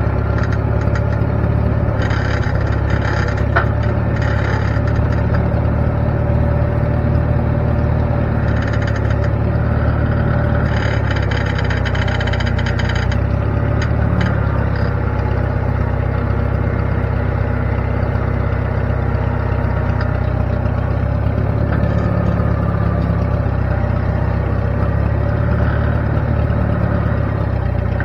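An engine running steadily at an even speed, with a few short stretches of hissing noise over it.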